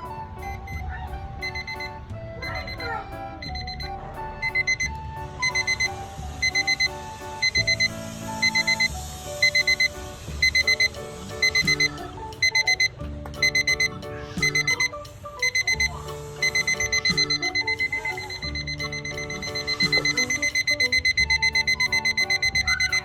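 NOVA 8RDA14 LCD table alarm clock sounding its alarm: short high electronic beeps repeating in even groups, then, about two-thirds of the way through, a faster, almost continuous beeping. Background piano music plays underneath.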